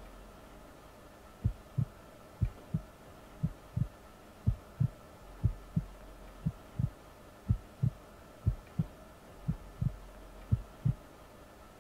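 A slow heartbeat: paired low thumps, lub-dub, about one beat a second, starting about a second and a half in and running on for ten beats.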